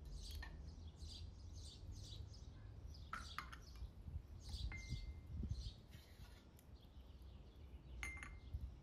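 Glass tea cup and small china saucers clinking as they are set down on a concrete block: a few light clinks about three seconds in, and short ringing clinks about halfway and near the end. Birds chirping throughout, over a soft low rumble.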